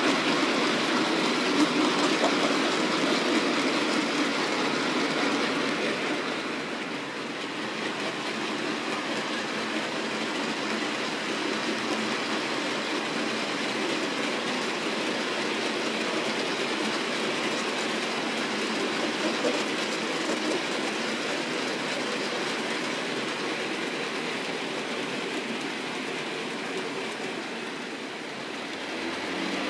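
OO gauge model train, a rake of hopper wagons behind a Hornby Class 56, rolling along the model track with a steady running clatter of wheels on rail. Louder for the first six seconds or so while the wagons pass close, then softer and even.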